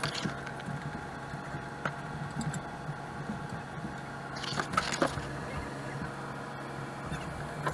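A steady low machine hum, with scattered light knocks and clicks over it and a short louder clatter about five seconds in.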